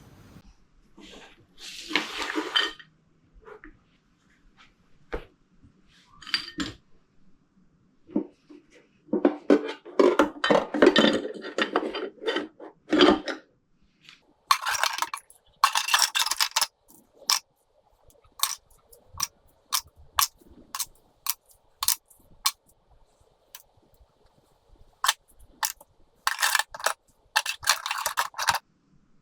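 Small metal carburettor parts clinking and clattering as they are handled and set down on metal, with a quick run of sharp separate clinks in the second half.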